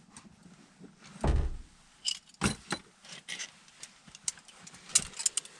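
Metal tools and parts clinking and rattling as they are handled, with a dull thump a little over a second in.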